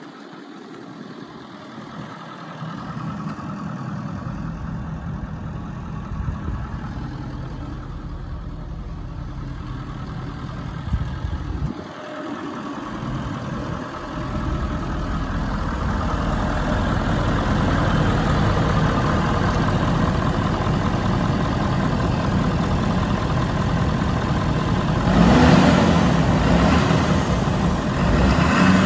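Ford F-350 Super Duty truck engine idling steadily. It grows louder over the stretch and is loudest near the end, with the hood open.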